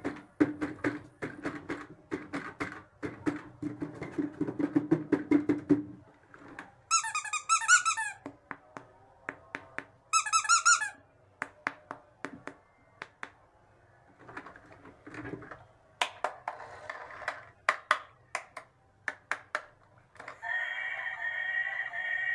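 Small plastic toy pieces and packaging being handled: a run of clicks, taps and crinkling. It is broken twice by a short warbling electronic tone about a second long, and a steady electronic tone sets in near the end.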